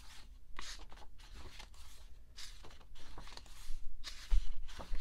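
Pages of an album photo book being turned by hand: a run of short paper swishes and rustles, with two dull thumps near the end as the book is handled.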